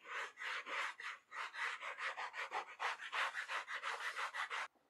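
Sanding block rasping back and forth along the edge of a thick vegetable-tanned leather strap in quick strokes, about five a second, truing the edge straight. It stops abruptly near the end.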